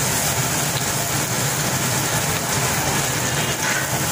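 Puri deep-frying in hot oil in a large wok, a steady sizzle with a low steady rumble underneath.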